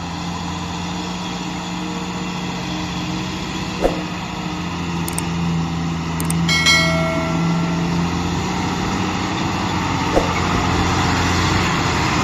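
Truck engine idling steadily with a low, even hum. About six and a half seconds in comes a brief high whistling hiss, like an air brake.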